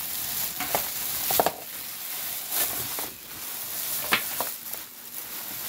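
Doubled Reynolds plastic oven bag crinkling and rustling as it is handled and tipped, with the seafood boil sliding out of it into a pot; a few sharper crackles stand out, about a second and a half in and again near four seconds.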